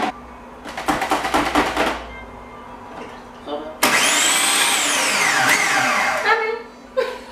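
Electric food processor crushing digestive biscuits into crumbs. A short rattling burst comes first, then about two seconds later a longer run of the motor lasting about three seconds, its pitch sweeping down and up as the crumbs churn.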